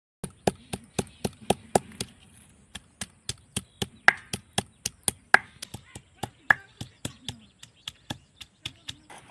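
Knife chopping vegetables on a board: a steady run of sharp chops, about three to four a second, a few of them louder.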